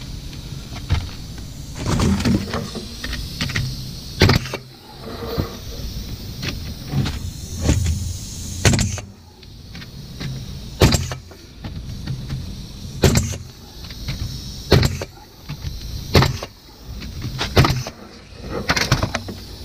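Ridgid cordless nailer driving nails into a new 2x4 sistered to a roof rafter: about eight sharp shots one to two seconds apart, with the tool's motor whirring between them.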